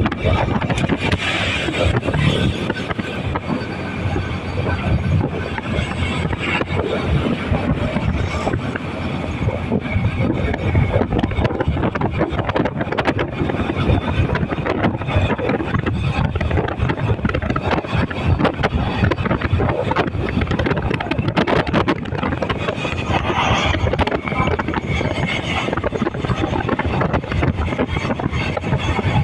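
Steady road noise of a car driving along at speed: a continuous low rumble of tyres and engine mixed with rushing wind.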